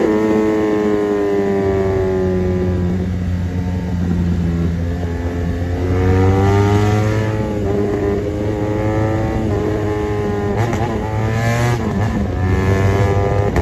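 BMW 1200 motorcycle engine under way. Its pitch falls over the first three seconds, then climbs as it accelerates from about five seconds in, dips briefly around eleven seconds and rises again near the end.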